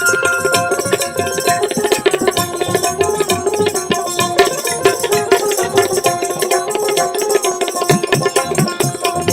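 Instrumental interlude of Bengali Baul folk music: a fast, steady hand-drum rhythm with jingling percussion under a sustained melodic instrument line.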